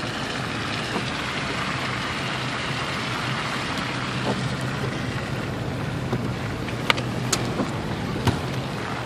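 Steady road and engine noise heard inside a slowly moving car, with a low hum underneath. A few sharp clicks come in the last couple of seconds.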